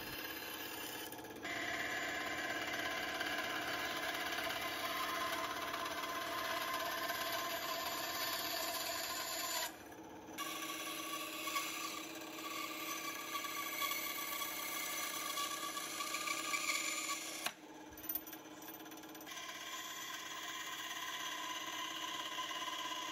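Bench band saw running and cutting aluminum angle stock, a steady whine with a rasping cut. The sound drops away briefly about a third of the way in and again about three quarters of the way through.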